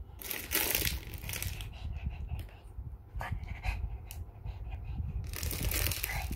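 Plastic snack bag crinkling in two bursts, one near the start and a longer one near the end, with a few sharp clicks in between. Through it a Shih Tzu pants excitedly, keyed up by the sound of the treat bag.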